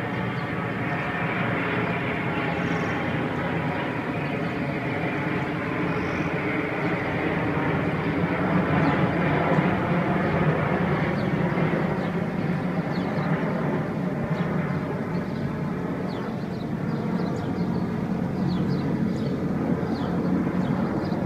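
Aircraft engine noise from a plane flying over. It is a steady drone that swells a little about eight to eleven seconds in, then eases off.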